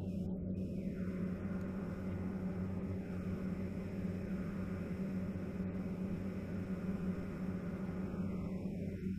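Steady in-flight noise inside a KC-135R tanker's boom pod: a constant rush of airflow with a low, even hum underneath.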